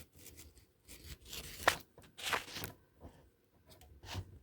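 Handling noise inside a desktop computer case: a few short rustles, scrapes and clicks as cables and the filming phone are moved about. The two loudest rustles come about one and a half and two and a half seconds in.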